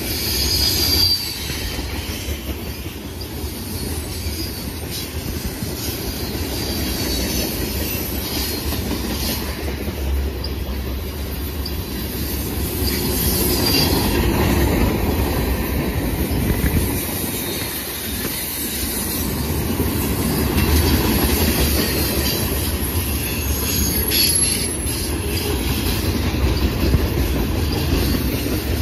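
Freight cars of a long mixed freight train rolling past: a steady rumble of steel wheels on rail, with short high wheel squeals near the start and again later.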